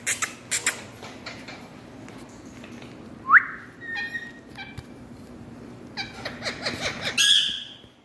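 Indian ringneck parakeets calling: a few short, sharp squawks, then one loud rising screech about three seconds in, and a quick run of chattering calls near the end that ends in a louder squawk.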